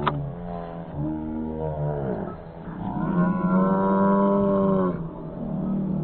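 Twin JetsMunt Merlin model jet turbines of a giant-scale RC English Electric Lightning, throttled up and down on the ground, their pitch rising and falling in several surges. The loudest surge comes about three to five seconds in, and there is a sharp pop right at the start.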